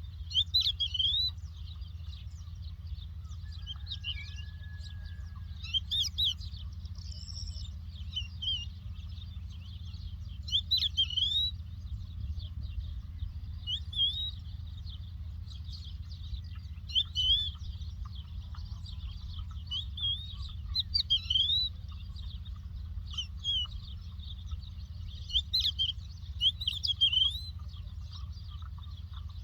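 Lark singing: a continuous run of short chirps and quick up-and-down whistled notes in clusters every second or two, over a steady low rumble.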